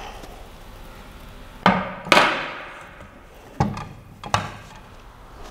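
A heavy metal 3D-printer gantry frame knocking against a glass tabletop as it is handled and set down. There are four sharp knocks; the second, about two seconds in, is the loudest and rings on for about a second.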